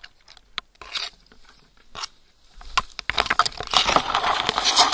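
Tall grass rustling and crackling against the camera as someone pushes through it. Scattered clicks at first, then a dense, loud rustle from about halfway in.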